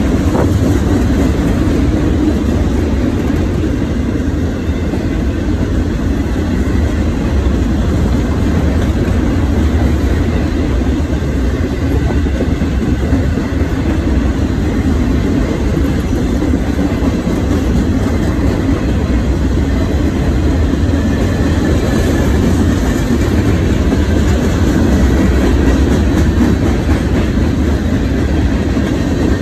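Freight cars rolling past: a loud, steady rumble of steel wheels on the rails, without a break.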